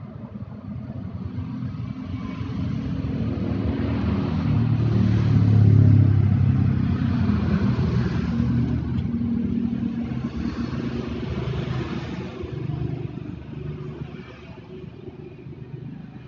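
A motor running with a low rumble and a hiss over it, swelling to its loudest about six seconds in and then slowly fading.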